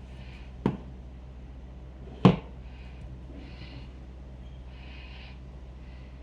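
Two sharp knocks about a second and a half apart, the second louder, over a steady low hum, with faint soft rustling between them.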